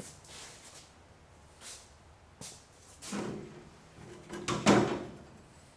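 Knocks and a scraping clatter of objects being handled and moved, with the loudest scrape about three-quarters of the way through.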